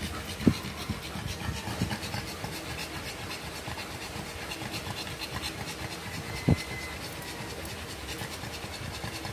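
Pug panting fast and steadily, as a bitch does while whelping, with two dull thumps, one about half a second in and one near six and a half seconds.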